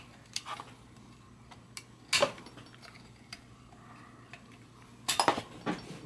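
Sharp metal-and-plastic clicks and clinks from a bicycle suspension fork's lower leg being worked apart, its wire retaining clip being pried off the plastic part: a few scattered clicks, a sharper one about two seconds in, then a quick run of clicks near the end.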